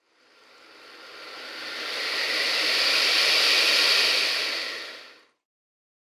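Alligator hissing: one long breathy hiss that swells slowly from nothing, peaks after about three and a half seconds and fades out about five seconds in.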